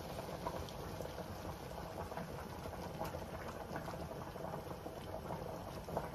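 Steady bubbling and crackling of food cooking on the stove, with many small pops throughout: shrimp, mushrooms and peppers simmering in a sauté pan as cooking cream is poured in, beside a pot of pasta boiling.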